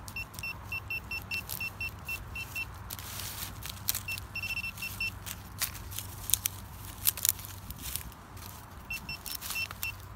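A metal detector gives runs of short, identical high beeps, about four a second, that at times run together, signalling a metal target in the freshly dug hole. Sharp clicks and scrapes from digging and handling in the marsh mud are mixed in.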